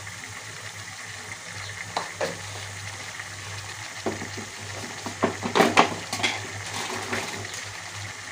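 Chicken and potato pieces sizzling in oil in an aluminium kadai, with a steady hiss, while a metal spatula stirs them and scrapes and knocks against the pan, loudest a little past halfway.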